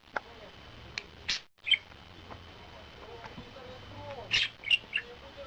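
A pet parrot giving short, high chirps, about six spread over a few seconds, with faint squeaky mews of young kittens between them.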